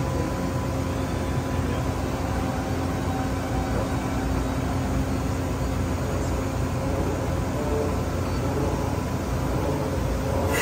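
Steady low hum of running industrial machinery, with a few faint steady tones over it and no sudden sounds.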